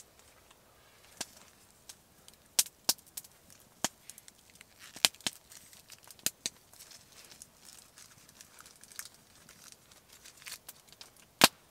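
Spruce wood fire crackling: sharp, irregular pops a second or so apart, with a louder pop near the end.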